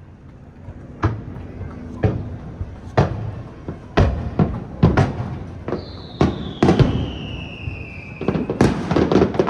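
Aerial firework shells bursting, sharp booms about once a second. A high whistle falls slowly in pitch for a couple of seconds, and then a quick cluster of bangs and crackles comes near the end.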